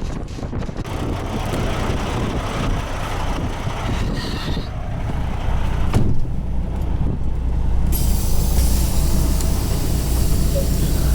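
Semi truck's diesel engine running with a steady low rumble, growing stronger after a sharp knock about six seconds in.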